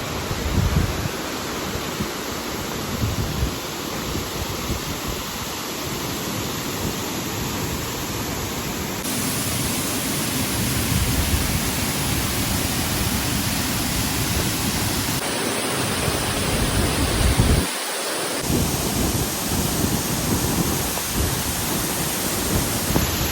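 Rushing water from a waterfall or river, a loud steady hiss, with irregular low rumbles of wind buffeting the microphone. The sound changes abruptly several times, as between separate clips.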